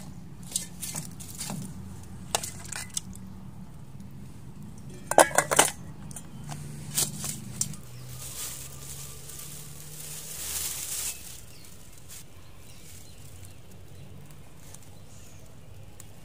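Stainless steel bowl and utensils clinking and clattering as food is handled, with a quick cluster of loud knocks about five seconds in and a few more around seven seconds.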